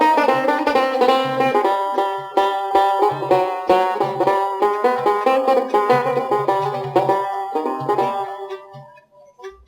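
Instrumental passage of Algerian chaabi music: a plucked-string melody led by banjo over a low, regular beat, thinning out and pausing briefly near the end.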